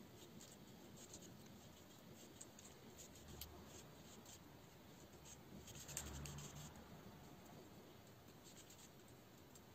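Faint clicks, taps and light rubbing of a plastic RC buggy gearbox housing handled in latex-gloved hands, with a sharper click about three and a half seconds in and a slightly louder knock around six seconds.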